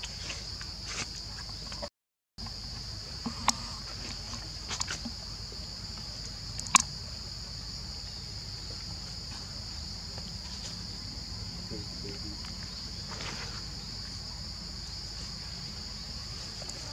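Steady high-pitched drone of insects, unbroken, with a few sharp clicks scattered through it, the loudest about seven seconds in, and a brief cut to silence about two seconds in.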